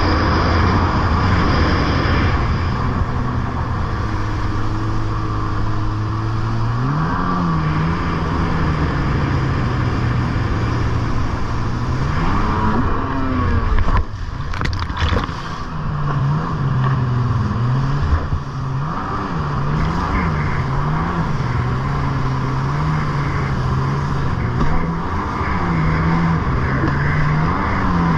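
Stand-up jet ski's engine running at speed over the rush of water and spray. Its pitch rises and falls with the throttle. Near the middle the revs climb, then drop suddenly with a splash, and afterwards the note swings up and down again in quick repeats.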